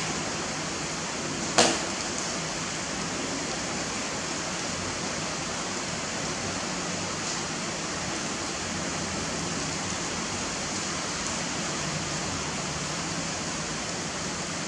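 Steady hiss of rain falling outside, with one sharp tap about one and a half seconds in.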